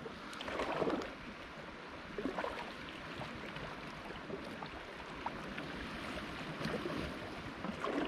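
Sea water washing and lapping against the shore, a steady wash with a few faint clicks.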